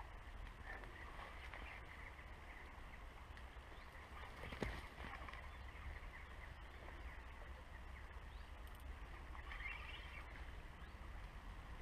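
Quiet riverbank ambience: a steady low rumble with faint bird chirps, strongest near the end, and one sharp knock about halfway through.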